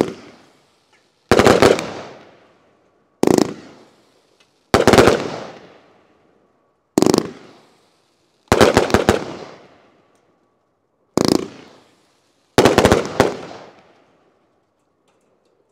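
Hall of Fame 36-shot 500-gram firework cake firing row by row: eight volleys one to two and a half seconds apart. Each volley is a quick cluster of shots from a row of tubes going off together and dies away over a second or so. Firing stops about two seconds before the end.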